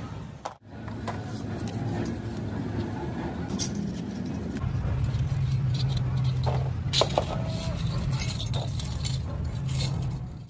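Light metallic clinks and taps as pressed-steel oil-filter end caps are handled and fitted onto rings of pleated paper filter media, over a steady low rumble. The sound drops out briefly about half a second in.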